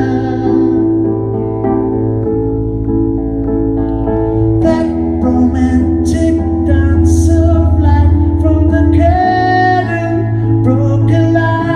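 Live solo performance: a man sings into a microphone over sustained chords played on a Nord Stage 2 keyboard, the chords changing every few seconds.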